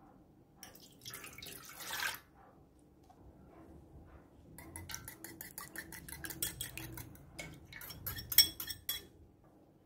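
Milk poured into a bread machine's non-stick pan, swelling to a splash at about two seconds. Then a wire whisk beats an egg in a bowl, clicking quickly against the sides at about six strokes a second, with one sharp knock near the end as the egg is tipped into the pan.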